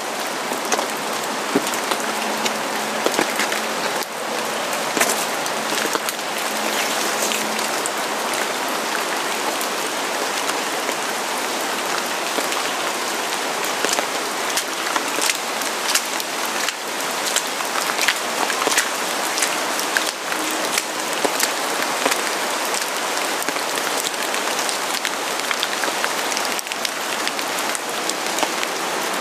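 Steady rain falling, with many sharp individual drop strikes ticking close by over a dense, even hiss.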